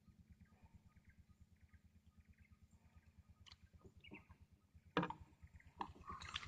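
Live baitfish on a float rig dropped over the side of a small boat, landing in the water with a light splash about five seconds in, with a few soft clicks of line and rod handling before and after. A faint low throb of about eight or nine beats a second runs underneath.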